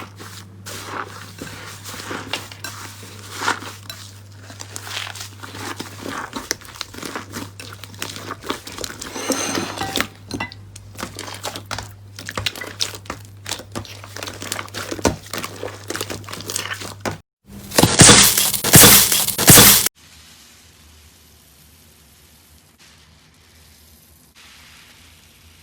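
Slime being squished and stretched, giving a run of small wet clicks and crackling pops. About three-quarters of the way in comes a louder, denser crackling for a couple of seconds that cuts off suddenly, leaving only a faint hiss.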